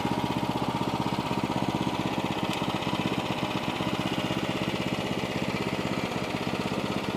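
Small gasoline engine of a portable sawmill running steadily at an even speed.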